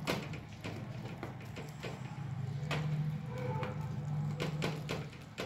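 A wooden spatula stirs and scrapes thick, simmering tomato chutney in a non-stick kadhai, with irregular knocks and scrapes against the pan. Under it runs a steady low hum that stops near the end.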